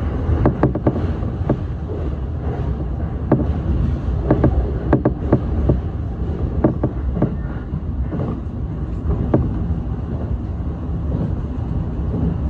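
Running noise of a JR East E233-series electric train heard from the driver's cab: a steady low rumble with irregular sharp clicks and knocks.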